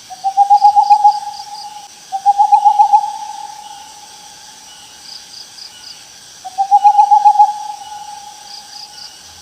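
An animal call given three times: a pitched, fast-pulsing trill, each lasting about a second and fading off. Faint insect chirping continues behind it.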